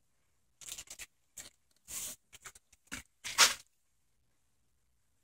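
A string of short, scattered rustling noises with no voice. The loudest is a longer hiss about three and a half seconds in.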